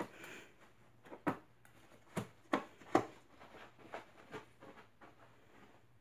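A dog scuffling over a fabric dog bed on a tile floor: a string of irregular soft taps and rustles that thins out near the end.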